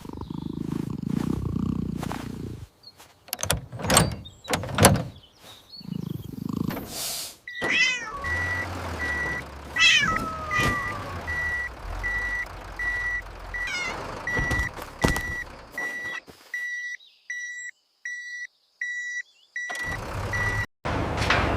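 A cat meowing a few times amid knocks, then a construction vehicle's reversing alarm beeping steadily over a low engine drone. The beeping starts about a third of the way in, with more meows over it, and stops shortly before the end.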